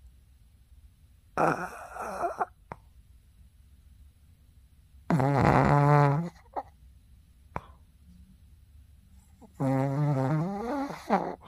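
Shih Tzu, a flat-nosed breed, snoring loudly in its sleep: three long snores about four seconds apart, each with a buzzing pitch that wavers in the later two.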